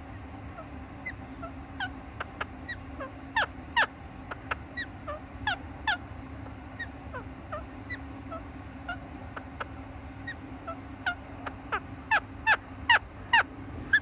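Rose-ringed parakeet making many short chirping calls, some sliding in pitch, with a run of louder squawks near the end. A steady low hum runs underneath.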